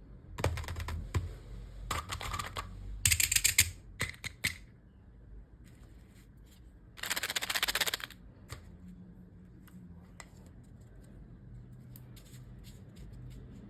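Candy and toy packaging handled and opened: plastic wrappers crinkling and crackling in irregular bursts, with sharp clicks between them. The longest, densest crackle comes about seven seconds in.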